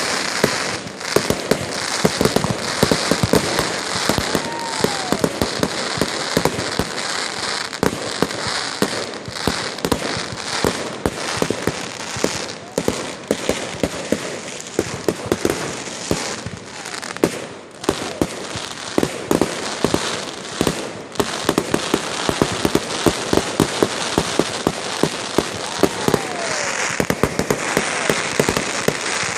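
Fireworks going off in a continuous rapid barrage of pops and crackles over a steady hiss, briefly thinning out about halfway through.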